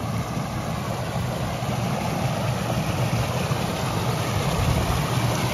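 Water rushing and splashing over a small stone weir into a stone-lined channel, a steady rumbling rush.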